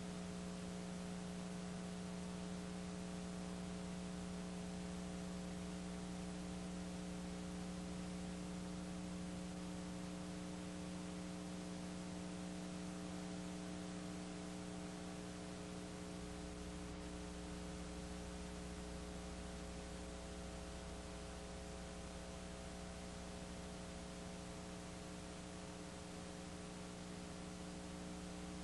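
Steady electrical mains hum: a low drone with several higher steady tones above it, over a constant hiss.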